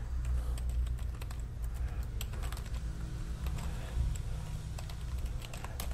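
Computer keyboard typing: irregular keystroke clicks as a terminal command is entered, over a steady low hum.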